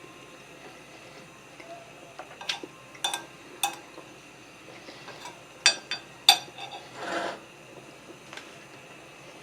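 Cutlery clinking against a dish of food: several separate sharp clicks, then a short scraping sound about seven seconds in.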